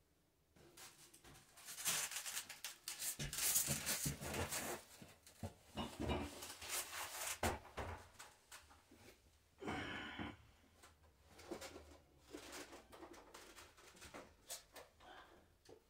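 Irregular scraping, rustling and knocking as a shower base is handled and set into place, with one louder scrape about ten seconds in.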